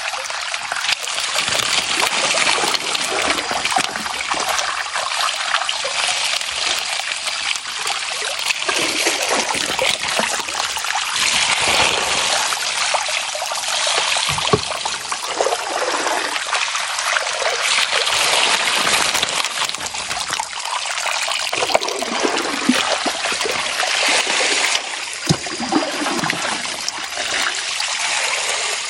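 Water poured from a plastic bucket over a carpet-lined sluice, washing sand and gravel down it and spilling off the end in a steady splashing stream, pour after pour, while sluicing for gold. A few short knocks sound in the middle and latter part.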